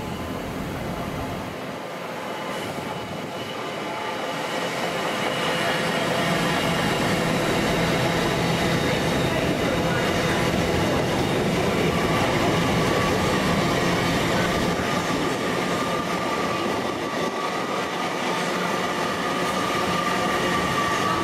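LNER Azuma (Class 800) high-speed train passing through at speed: a steady rush of wheels on rail and air, growing louder about six seconds in, with faint steady whining tones over it.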